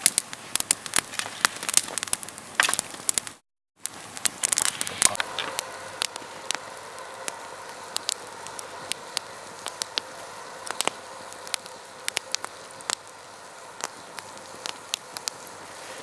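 Wood campfire of dry sticks and branches burning, crackling with many sharp irregular pops and snaps over a steady hiss. The sound drops out briefly about three and a half seconds in, then the crackling carries on.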